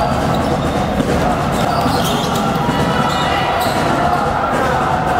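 Basketball game sounds: a ball bouncing on the court amid a steady din of players' and spectators' voices.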